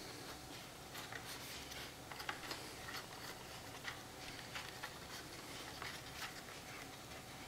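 Faint, irregular clicks and taps from handling a camcorder and fitting its detachable plastic carrying handle to the tripod mount.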